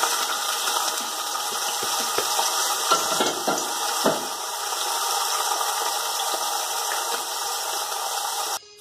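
Dried salted fish (daing) frying in hot oil: a steady loud sizzle with a few sharper pops and crackles around three to four seconds in, cutting off abruptly near the end.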